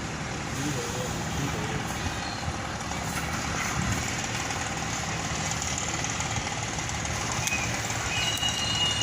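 A heavy diesel engine running steadily, with faint voices in the background.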